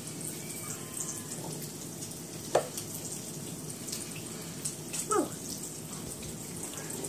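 Bacon sizzling in a frying pan: a steady hiss with fine crackles. Two short, falling squeaks stand out, about two and a half and five seconds in.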